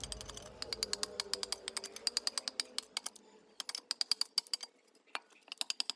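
Hand file worked over a steel axe blade in quick short strokes, heard as rapid runs of sharp clicks with two short pauses.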